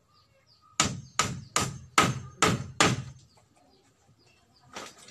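A tool striking bamboo in hut building: six sharp knocks in quick succession, about two and a half a second, then a single knock near the end.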